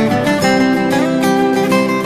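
Instrumental background music with acoustic guitar, several notes sounding together and held.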